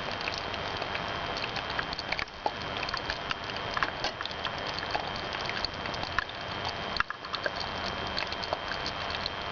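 Small fire crackling and popping in the firebox of a homemade steam boiler over a steady hiss.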